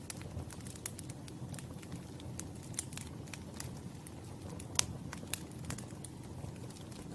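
Campfire burning: a steady low rush of flame under frequent irregular crackles and pops of burning wood, with one sharper pop a little under five seconds in.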